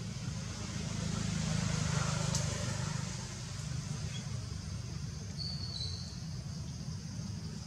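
Steady low outdoor rumble with a faint hiss, swelling about one to three seconds in. A brief high squeak comes about five and a half seconds in.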